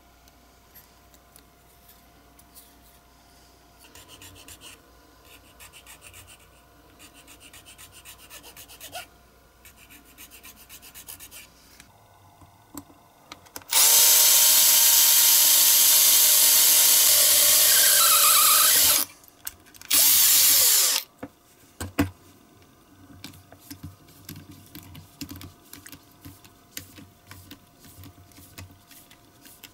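Hobby blade scraping a diecast metal model body in quick, faint strokes. Then a Bosch cordless drill runs steadily for about five seconds as it drills into the body, with a second short burst just after. Faint ticks and scrapes follow as a small drill bit is worked by hand.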